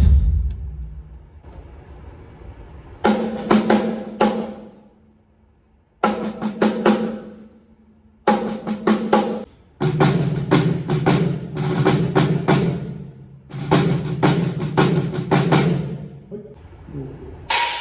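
Drums of a TAMA Starclassic Bubinga kit played in short fills and rolls during a sound check: several bursts of rapid strokes with pauses between, a higher-pitched drum in the first groups and lower, deeper drums in the longer rolls that follow. Cymbals come in near the end.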